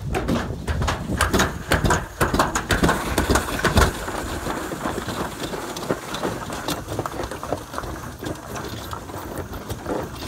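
Toboggan sled running down a slide track: a steady rattling rumble, with many small knocks in the first few seconds.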